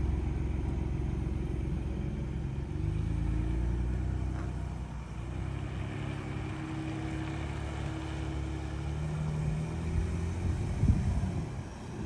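2021 Ford Bronco pulling away and driving off at low speed, heard from outside the vehicle. Its engine runs with a low hum that rises in pitch as it gathers speed, twice.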